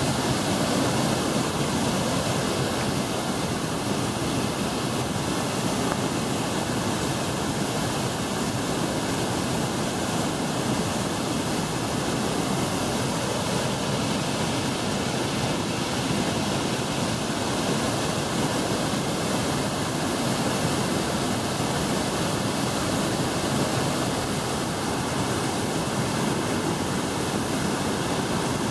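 Iguazu Falls: the steady rush of huge volumes of water plunging over the cascades and churning through the whitewater below, a dense, unbroken noise with no let-up.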